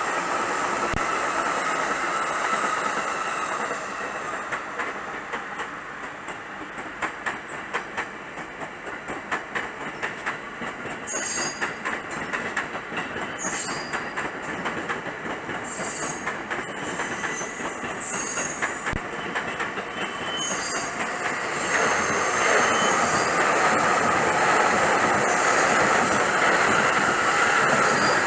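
Electric commuter trains passing. A green-and-orange striped train runs by first. Then comes a quieter stretch of sharp rail clicks and thin, high wheel squeal, and about three-quarters of the way through the running noise rises again as a light-blue Keihin-Tohoku Line E233 series train comes in close.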